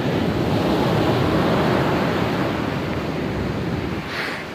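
Surf washing up the beach, with wind buffeting the microphone. The rush swells about a second in and eases off near the end.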